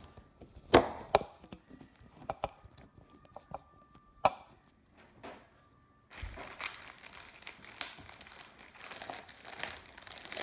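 Several knocks and clicks of things being set down and handled, then from about six seconds in a steady crinkling of a light shipping bag being handled.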